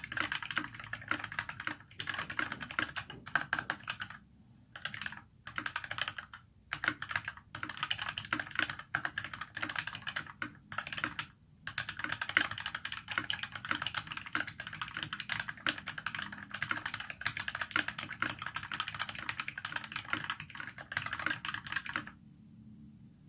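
Fast typing on a Vortexseries VX64 mechanical keyboard with filmed Durock linear 67g switches, PBT keycaps, a plastic case and a steel plate. It is a dense run of key strokes with a few short pauses, and it stops about 22 seconds in.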